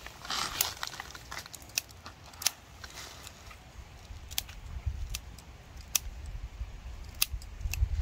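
Climbing wattle being cut: scattered sharp snaps and clicks with rustling of the foliage, busiest in the first second, over a low rumble.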